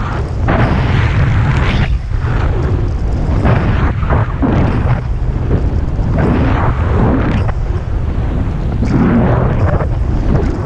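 Wind buffeting the camera microphone of a skier running downhill, a heavy steady rumble, with the hiss of skis through snow surging and easing with each turn, about once a second or so.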